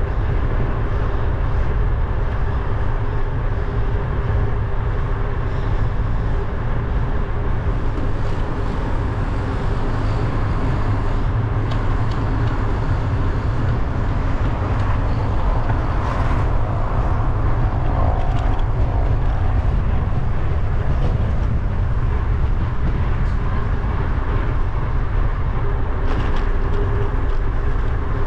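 Wind buffeting the microphone of an action camera on a moving bicycle: a steady low rumble, with road and street-traffic noise under it that swells briefly about halfway through.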